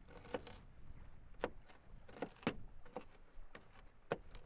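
Kitchen knife dicing an onion on a plastic cutting board: about seven sharp, unevenly spaced chops.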